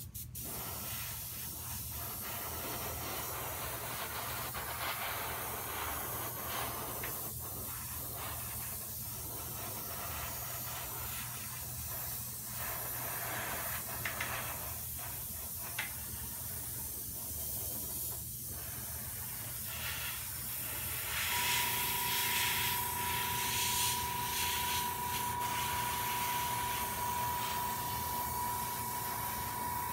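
Iwata airbrush hissing as it sprays paint, the hiss dipping briefly now and then as the trigger is eased. About two-thirds of the way in, a steady high whine with a fainter lower tone joins it.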